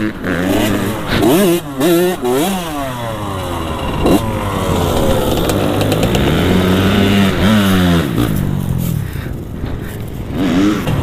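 Dirt bike engine revving in quick throttle blips, about two a second, then one longer rev that rises and falls back over a few seconds.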